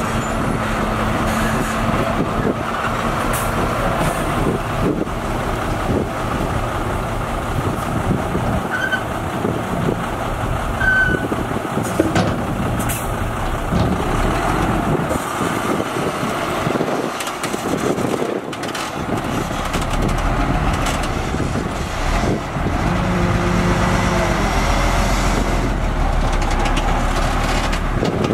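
Heavy diesel dump truck engines running at work: one truck tipping and pulling away from the dirt pile, another backing up to it, its engine pitch rising and falling in the last few seconds.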